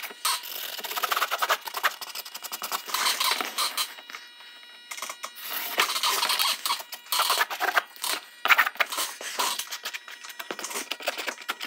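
Rapid scratchy strokes of a felt marker drawing on a pressed-paper grill mock-up, mixed with the rustle of handling the paper and tape. There is a quieter pause about four seconds in.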